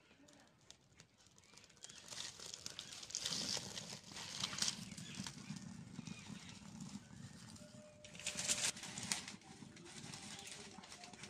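Dry twigs and sticks rustling and crackling as they are pushed into a clay mud stove and catch fire. There are louder bursts of crackle about three to five seconds in and again around eight to nine seconds.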